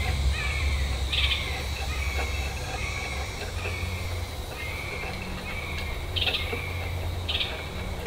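A bird repeating a short falling chirp about twice a second, with a few brief higher buzzy notes mixed in, over a low wind rumble.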